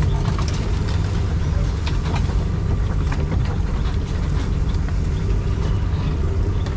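A 4x4 off-road vehicle driving slowly along a rough, narrow trail: a steady low engine drone with scattered knocks and rattles throughout.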